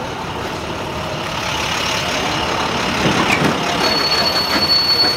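Heavy diesel machinery of the submarine move running steadily: the multi-axle modular transporter's power units and the barge's ballast pumps, growing louder about two seconds in. A steady high whine joins near the end.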